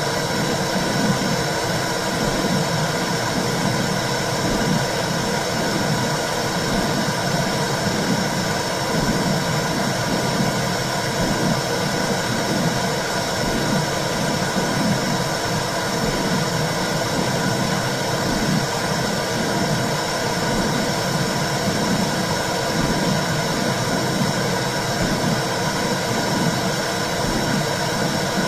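Womb sound for soothing a baby: a steady whooshing noise with an uneven pulsing in the low range.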